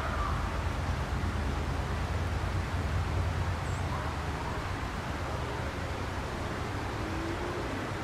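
Low, steady rumble of diesel locomotives working as they approach along the track.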